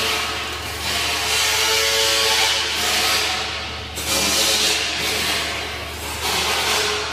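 Flux-cored arc welding: the arc sizzling and hissing steadily, dipping briefly about four seconds in and again about six seconds in, over a steady low hum.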